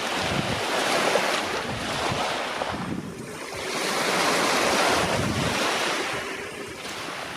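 Sea surf washing onto the shore, swelling in twice and falling back, with wind buffeting the microphone.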